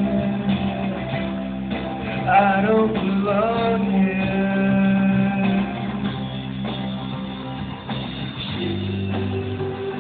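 Live rock band playing: a singer over guitars, with held notes and a wavering vocal line.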